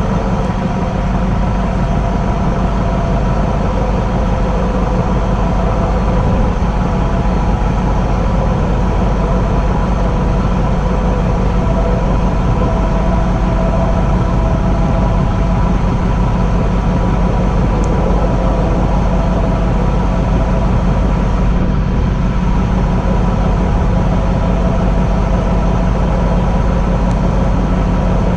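Electric train running along the track, heard from its front cab: a steady low rumble with a few faint humming tones over it.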